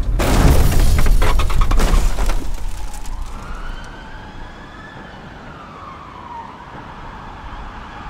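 A loud car crash with clattering, right after a tyre skid, dying away over the first two or three seconds. Then an emergency siren wails, rising and falling in pitch.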